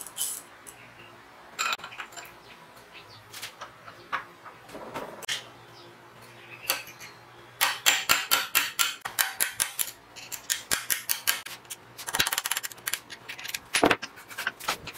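Metallic clicks and ticks from a 24-tooth bicycle freewheel sprocket clamped in a bench vise as it is worked with a flat steel tool and by hand. A few scattered clicks at first, then quick runs of about six clicks a second through the second half, ending in one sharp click.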